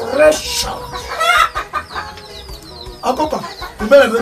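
Chickens clucking, in a string of short calls mixed with higher chirps, louder near the start and again after about three seconds.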